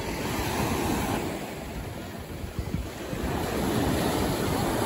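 Sea surf washing onto the beach, swelling and ebbing, with wind rumbling on the microphone.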